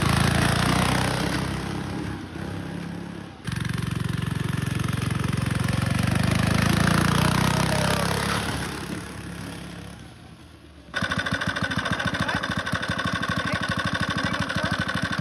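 Power Fist 79cc OHV single-cylinder four-stroke engine on a kids' snowmobile, running under load as the sled is ridden, swelling and fading twice. About eleven seconds in it changes abruptly to the same engine idling with a steady, even putter.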